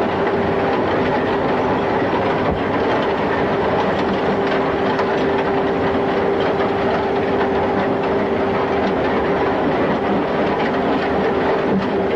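Longwall coal-face machinery running: a loud, steady mechanical din with a constant whine and a continuous rattling clatter.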